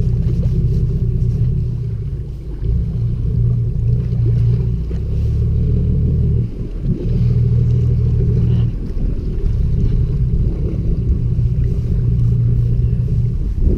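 Charter fishing boat's engine running with a steady low drone, dipping briefly about halfway through.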